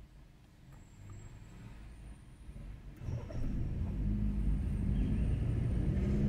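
Car engine and road rumble, faint at first, then a low rumble that swells about halfway through and keeps building.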